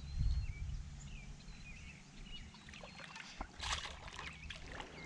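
Water splashing and dripping beside a small boat, with a short burst of splashing about three and a half seconds in, while birds chirp in the background.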